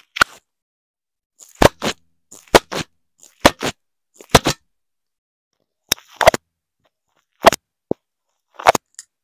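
Fidget toys pressed against a foam-covered microphone: the bubbles of a silicone pop-it board popping, and squishy foam toys being squeezed. Sharp snaps and crunches come one or two at a time, about once a second.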